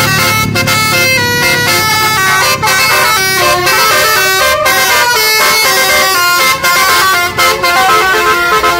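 Bus Basuri telolet air horns on roof-mounted trumpets, playing a fast melody of stepped notes, several trumpets sounding together, loud.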